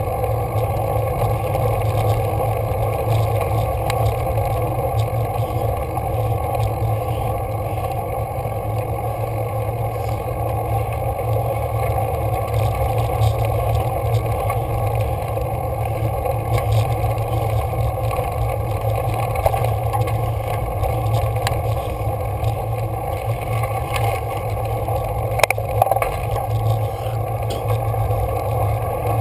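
Steady rumbling ride noise of a road bike climbing a rough, gravelly mountain road, with a few faint clicks through it, a couple near the end.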